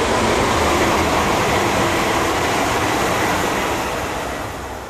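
DB Regio class 440 (Alstom Coradia Continental) electric multiple unit passing at speed, a steady rushing rolling noise with a faint high whine in the middle, fading away near the end.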